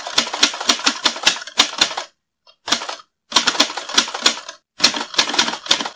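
Rapid key clicks of typing, in several quick bursts broken by short silent gaps.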